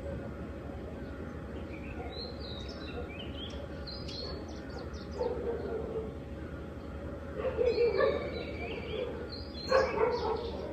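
Small birds chirping and twittering, joined in the second half by a dog barking in two short bouts, the loudest sounds here.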